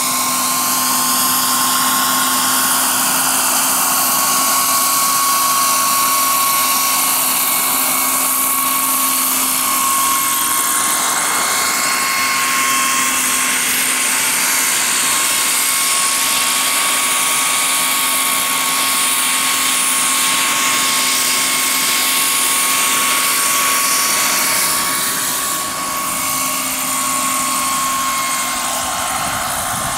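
Small gas turbine of a radio-controlled Sikorsky S-64 Skycrane scale model helicopter running in flight: a steady high-pitched whine over a loud hiss.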